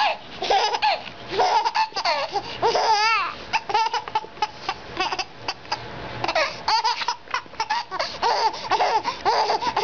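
A baby laughing hard, belly laughs and squeals in quick repeated bursts with hardly a pause.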